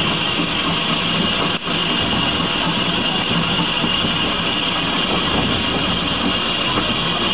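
Manning Wardle saddle-tank steam locomotive running slowly, heard from the footplate: a steady rush of steam and running noise, with a brief dropout about one and a half seconds in.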